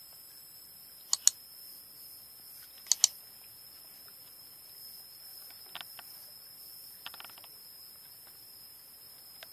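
Two loud, sharp double clicks of a computer mouse, about two seconds apart, followed by a few fainter clicks later on. A thin, steady high-pitched whine lies under them.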